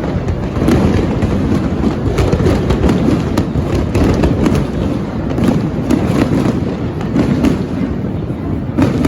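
Fireworks display: a dense, continuous run of bangs and crackles over a low rumble.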